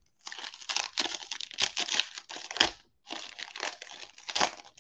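Foil wrapper of a Donruss football trading card pack crinkling and tearing as it is ripped open by hand, in two stretches with a short pause near the three-second mark.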